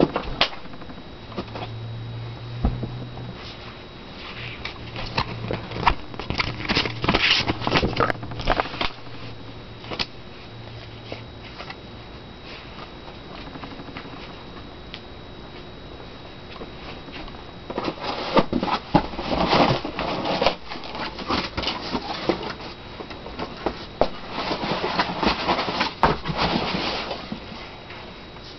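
Cardboard box and packing being handled: bursts of rustling, scraping and sharp clicks as the Crickett .22 rifle is taken out. There is a low hum during the first half.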